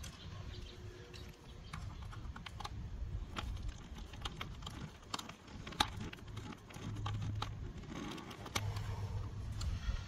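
Small irregular clicks and taps of a small screwdriver and a wire against a plastic terminal block on a control-panel circuit board, as the wire is seated and its terminal screw tightened. The sharpest click comes about six seconds in, over a low rumble.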